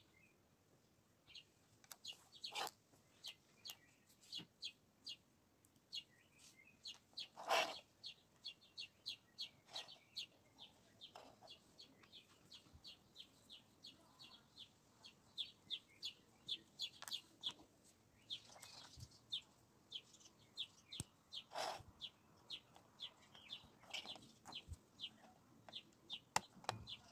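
Short, high bird chirps repeating two or three times a second, with a few louder clicks and taps from LEGO pieces being handled and pressed into place.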